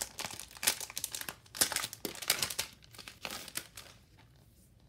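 Clear plastic sleeve crinkling as it is handled and a paper pack is pulled out of it. It is a quick, dense run of crackles that dies away a little under four seconds in.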